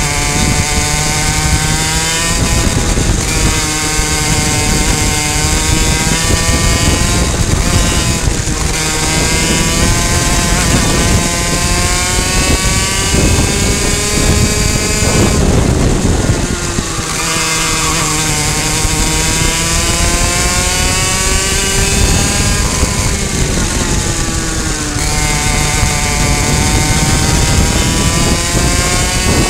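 High-revving two-stroke racing kart engine at full race pace, repeatedly winding up in pitch along the straights and dropping off into the corners, with other karts' engines close by. About halfway through there is a brief rush of noise as the engine note falls away.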